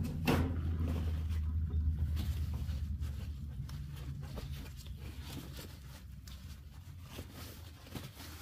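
Paper towel rustling and rubbing as a wet stained glass panel is wiped dry. Under it runs a low steady hum from the sink area that slowly fades.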